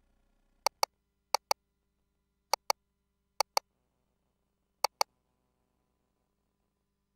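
Ultrasound machine console clicks: five sharp double clicks at irregular intervals over the first five seconds, as controls are pressed and measurement calipers are placed on the image.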